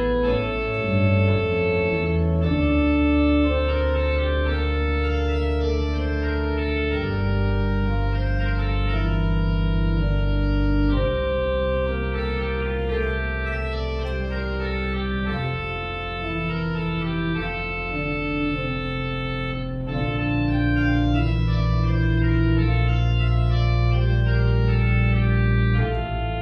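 Organ playing slow, sustained chords over long-held deep bass notes that change every four or five seconds.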